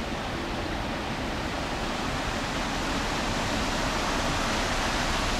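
Steady rush of flowing river water at a shallow ford, growing slightly louder partway through.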